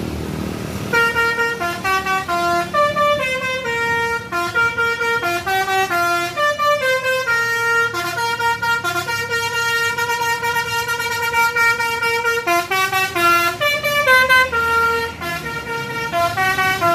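Telolet multi-tone bus horn playing a quick melody, its notes stepping up and down, with one long held note midway and a short break near the end, over low engine rumble.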